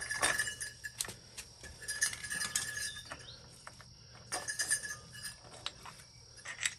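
Light metallic clinks and taps of the starter gear and small engine parts being worked out of a Suzuki GSX-R 600's side case by hand, with a few brief rings of metal.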